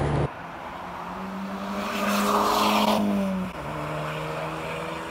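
A car driving past on a street: engine hum and tyre noise swell to a peak a couple of seconds in, then the engine note drops lower as it moves away.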